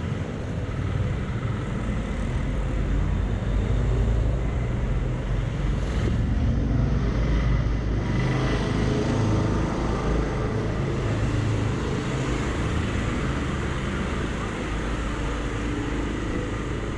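Street traffic: cars driving past on a city street, one going by close around the middle, over a steady low rumble.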